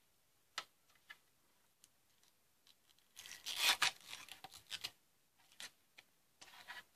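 Hands handling and prying at a plastic router part. A few small clicks come first, then about two seconds of plastic scraping and rustling in the middle, then more scattered clicks.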